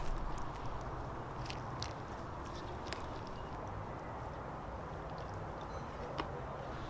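Someone eating from a bowl with chopsticks: a few light, sharp clicks of the chopsticks and some chewing over a steady background noise.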